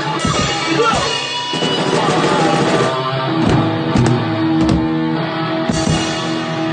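Rock music from a band jamming, led by guitar, with drum hits.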